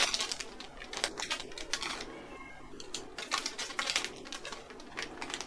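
Quick, irregular light clicks and taps of whole spices and glass jars being handled as small hard allspice berries are dropped into jars packed with tomatoes.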